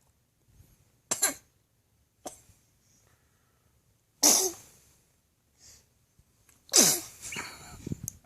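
Baby sneezing in a fit, four short sharp bursts with the last two loudest, set off by spoonfuls of peaches.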